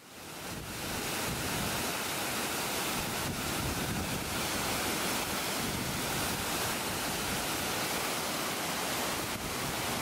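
Waterfall close by, water pouring down a rock face into a plunge pool: a steady, even rush of falling water that swells in about half a second in and then holds level.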